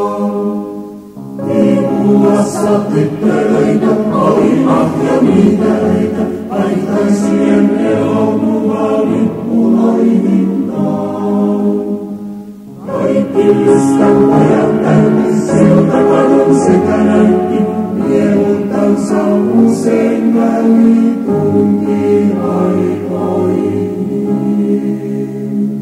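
A song sung by a choir, in sung phrases with short breaks about a second in and about halfway through.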